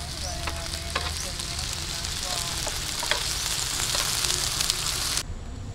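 Capcay of green vegetables, sausage slices and meatballs sizzling as it is stir-fried in a grill pan, with the spatula scraping and clicking against the pan. The sizzle cuts off suddenly near the end.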